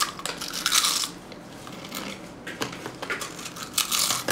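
Crunching of a ridged potato chip being bitten and chewed, in several crackly bursts: a loud bite at the start and more crunches near the end.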